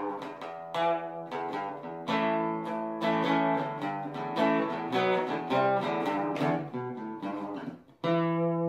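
Background music on plucked guitar: a quick run of picked notes, then a chord struck about eight seconds in that rings on.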